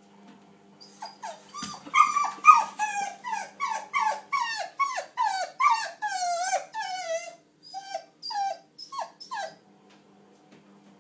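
Tan puppy whining in a rapid run of short, high cries, each falling in pitch, two or three a second, starting about a second in and stopping near the end. It is whining at a shut door.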